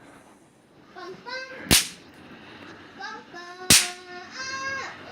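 Two sharp cracks of bang snaps (snap pops) thrown onto the ground, about two seconds apart. Short sung syllables come between them.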